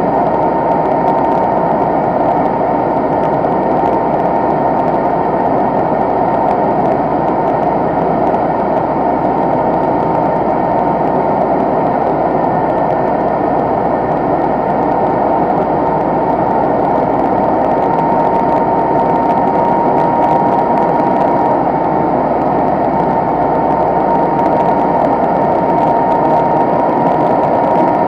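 John Deere 6430 tractor running steadily under load as it pulls a Gaspardo Renata pneumatic maize planter. A steady high whine, most likely from the planter's PTO-driven vacuum fan, runs over the dense mechanical noise, heard close up from the rear of the tractor.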